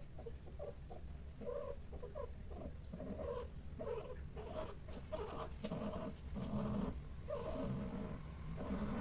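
Domestic cats vocalizing in a run of short, repeated low calls, two or three a second, over a steady low rumble.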